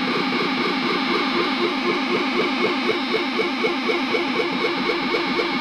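Chain of Dwarfcraft effects pedals into a digital delay making a steady, distorted, looping electronic pattern: short chirps repeating evenly at about five a second.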